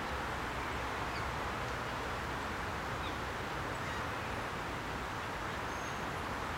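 Steady outdoor background hum with a few faint, high bird chirps scattered through it.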